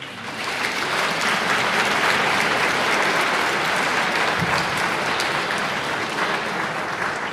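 Audience applauding, starting all at once and beginning to fade near the end.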